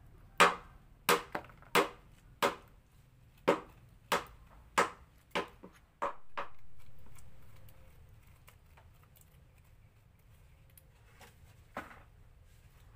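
A metal spoon knocking sharply against passion fruit shells and a plastic basin as the pulp and seeds are scooped out, about ten distinct knocks over the first six seconds, then one more near the end.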